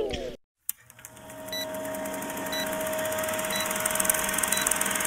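Guitar intro music ends, a brief gap follows, then an old-film countdown sound effect starts about a second in: a film projector's steady whirr with a short tick about once a second, one for each number of the countdown.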